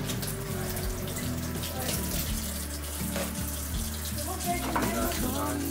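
Kitchen tap running into a sink, the water splashing over hands washing and rinsing things under the stream, with background music.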